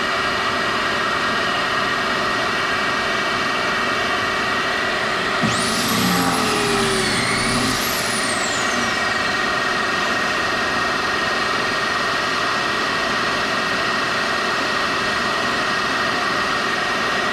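A shop vacuum runs steadily and loudly, and from about five and a half to nine seconds in a drill spins up and bores a pocket hole through the Kreg jig, its pitch sweeping as it cuts.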